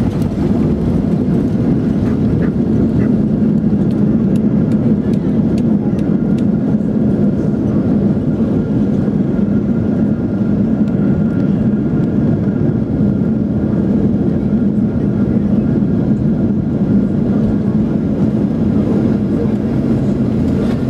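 Inside the cabin of a Boeing 737-800 during the landing roll: a loud, steady rumble from its CFM56-7 engines and its wheels on the runway. Light rattles tick over it in the first several seconds.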